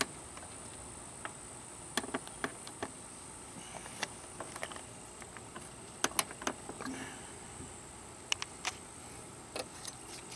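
Scattered light clicks and knocks of hands and a tool working at the plastic retainers of a Ford Taurus headlight assembly, a dozen or so short taps spread irregularly, over a faint steady high-pitched whine.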